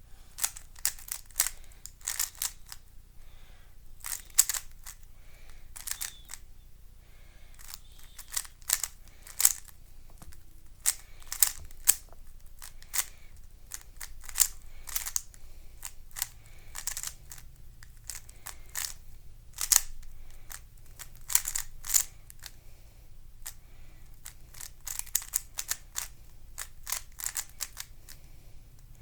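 A YJ 3x3 speedcube being turned fast during a timed solve: a stream of irregular sharp plastic clicks and clacks as the layers snap round, with short pauses between bursts of turns.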